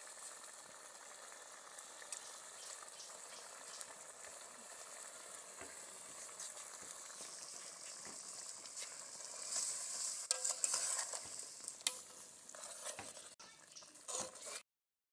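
Okra soup cooking in a metal pot over a wood fire: a steady sizzling hiss, with a metal ladle stirring and knocking in the pot. The knocks are sharpest about ten to twelve seconds in, and the sound cuts off suddenly just before the end.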